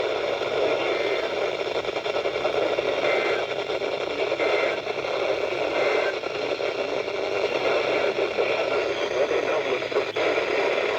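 Steady static hiss from a weather radio receiver on a weak signal, the broadcast all but lost in the noise.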